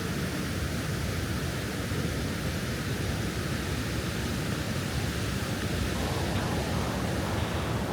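Steady rushing of flood-swollen river water spilling over a concrete stepped cascade.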